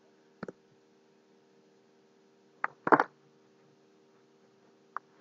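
A few scattered computer mouse clicks, a couple of seconds apart, over a faint steady hum.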